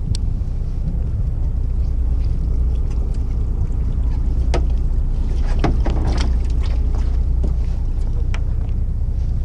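Steady low rumble of a fishing boat's engine with wind on the microphone, and a handful of short sharp clicks and rattles of reel and tackle being handled about halfway through.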